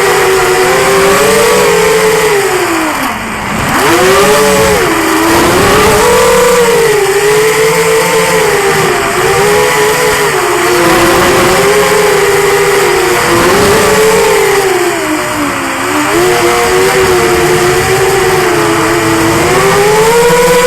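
The four brushless 2204 2300Kv motors and propellers of a QAV210 racing quadcopter whining in flight, recorded on board. The pitch rises and falls constantly with the throttle, dropping sharply with a brief dip in loudness about three seconds in and dropping again around fifteen seconds.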